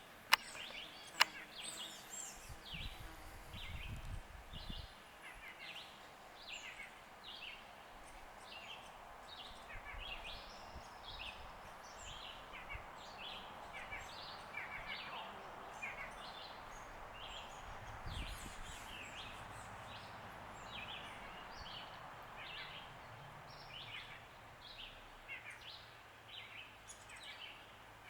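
Birds calling, with many quick falling chirps and whistles repeating throughout. Two sharp clicks about a second apart come near the start, and brief low rumbles come a few seconds in and again past the middle.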